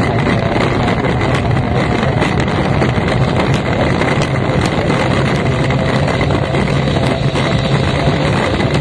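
An F1 powerboat's outboard engine running loud and steady, heard from the cockpit, with wind buffeting the microphone.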